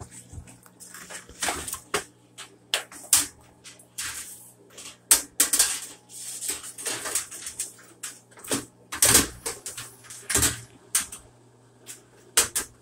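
Irregular clicks and knocks of parts being handled on an opened-up front-load washer, over a steady low hum that stops about nine seconds in.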